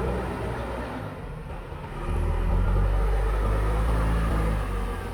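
Diesel engine of a JCB backhoe loader working: it drops back about a second in, rises louder about two seconds in, and eases off near the end.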